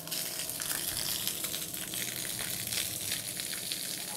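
A jet of water pumped by a small dishwasher pump through a drain hose, splashing steadily onto paving stones in an even, crackly patter.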